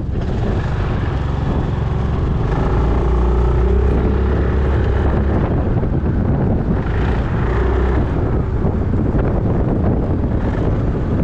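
Wind buffeting the microphone while riding a Yamaha Majesty 400 scooter, with its single-cylinder engine running underneath a steady low rumble.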